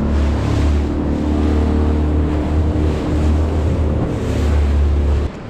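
Yamaha 25 hp outboard motor running steadily as the inflatable boat moves along, mixed with wind buffeting the microphone and water rushing past the hull. The sound cuts off suddenly about five seconds in.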